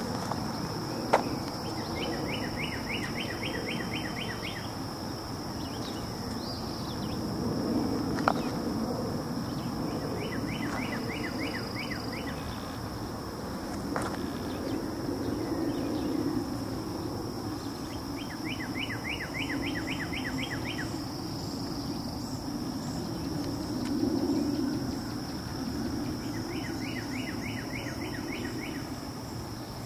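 A bird singing a short trill of rapidly repeated notes, about two seconds long, given four times roughly eight seconds apart. Behind it runs a steady high whine and a low steady rumble, with a few faint clicks.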